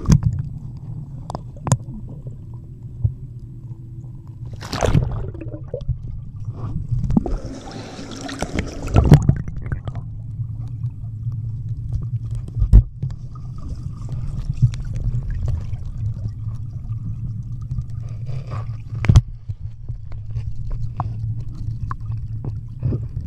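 Muffled underwater sound of a dog paddling: a steady low rumble of moving water, broken by sharp knocks and brief splashy swishes now and then as it strokes.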